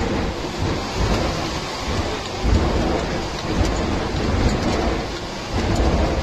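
Sea water rushing and spraying against the hull and windscreen of a Beriev Be-200 amphibian as it skims the surface scooping water into its tanks, a loud, steady hiss over a deep rumble, heard from inside the cockpit.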